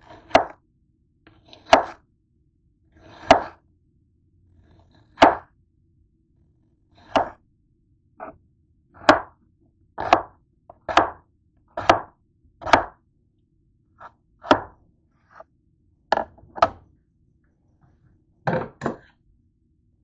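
Kitchen knife slicing through a peeled onion, each cut ending in a knock on the cutting board: about eighteen separate cuts at a slow, uneven pace of roughly one a second, a little quicker in the middle.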